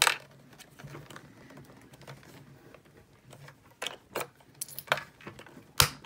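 Sharp metal clicks from the key lock and lid latch of a SentrySafe fire chest being unlocked and opened: one at the start, a few more in the second half, and the loudest just before the end.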